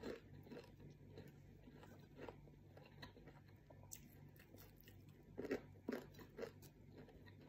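Faint mouth sounds of chewing and crunching crispy fried anchovies, with two louder crunchy bites about two thirds of the way through.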